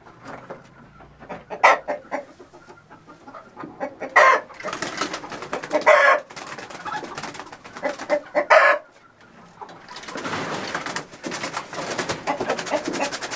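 Hens squawking and clucking as they are grabbed off the roost, with four loud squawks spread over the first nine seconds. A long burst of wing flapping follows near the end.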